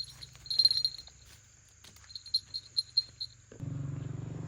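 A small animal's short high-pitched chirps, a cluster about half a second in and a run of five or six near the middle, then a steady low hum starts suddenly near the end.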